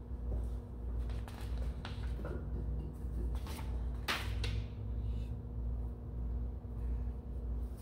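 A few light knocks and clicks of tools and parts being handled on a workbench, over a steady low electrical hum.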